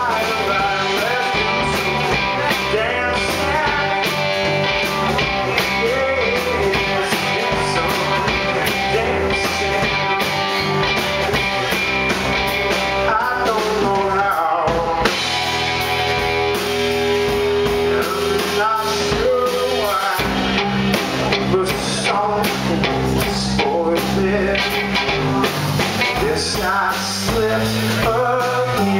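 A rock band playing live: electric guitars and a drum kit, amplified and loud.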